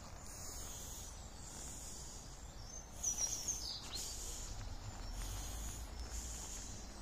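Woodland ambience: a steady high-pitched insect hum, with a bird's quick run of chirps ending in a falling note about three seconds in.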